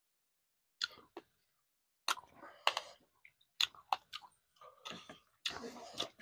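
Close eating sounds: irregular chewing with wet mouth clicks and smacks, starting about a second in, from someone eating dhido with mustard-green saag.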